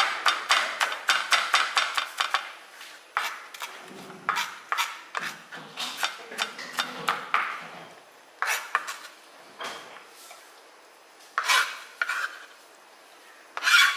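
Chef's knife mincing garlic on a plastic cutting board: a quick run of knife taps, about five a second, for the first couple of seconds, then slower, scattered taps and a few single knocks near the end.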